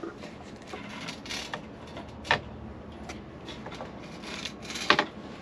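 Handling noise as the van's ceiling light panel and its switch wiring are moved about: light rubbing and creaking with two sharp knocks, one about two seconds in and one near the end.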